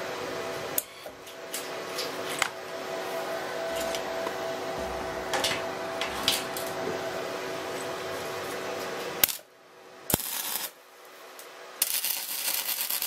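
Wire-feed (MIG) welder: a steady hum with a few sharp metallic clicks as the steel bracket and bolts are set in place. Near the end comes a brief arc strike, then about a second and a half of welding-arc crackle as a nut is tack-welded to the steel angle.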